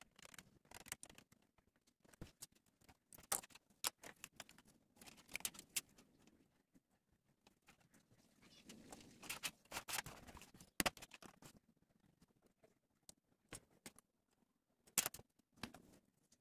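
Quiet, irregular clicks, taps and scratches of a ballpoint pen, a plastic ruler and small metal rings being handled and drawn around on a tin sheet as it is marked out, with a few sharper taps among them.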